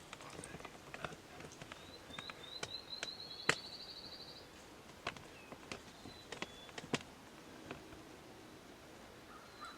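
A small songbird sings a rapid, even trill of short high notes for a couple of seconds. It is mixed with scattered sharp clicks and taps, the loudest about three and a half seconds in.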